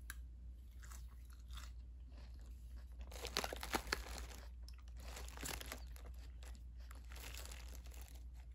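A fork tossing and pressing through crisp baby salad leaves and lettuce in a plastic container: a run of crisp rustling crunches, loudest a little before the middle.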